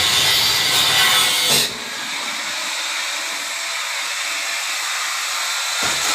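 A saw cutting through coconut-tree wood, a steady noisy sound that drops in level and loses its low end about two seconds in.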